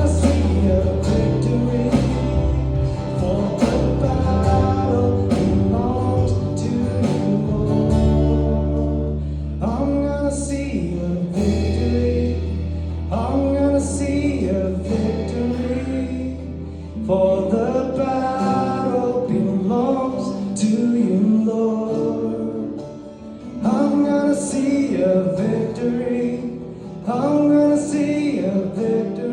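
Live worship band music with singing, over guitar and deep held bass notes that fade out a little past halfway.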